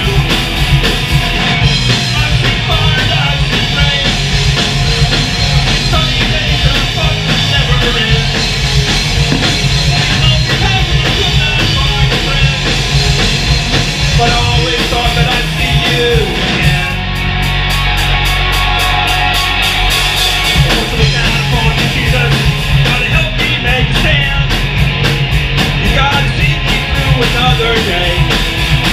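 A live rock band playing loud, with electric guitars, bass guitar, drums and a singer. The sound thins briefly a little past the middle, then the full band carries on.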